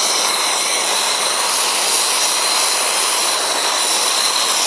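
Handheld gas torch burning with a steady, even hissing rush as its flame heats a copper ground-rod pipe and its clamp for soldering.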